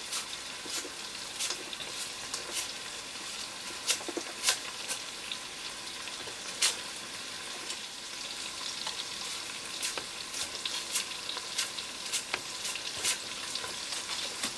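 Browned lamb pieces frying in hot oil in a pot: a steady sizzle with scattered crackling pops.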